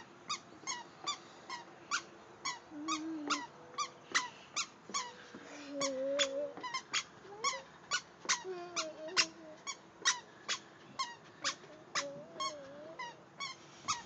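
A toddler's squeaker shoes squeaking with each step: a quick, regular run of short squeaks, about three a second, each dropping slightly in pitch.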